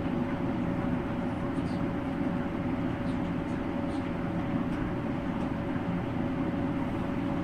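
Steady machine hum with one constant mid-pitched tone running through it.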